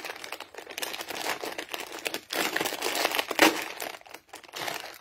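Foil snack bag crinkling as it is pulled and torn open by hand: a dense, continuous crackle with a sharper, louder rip about three and a half seconds in.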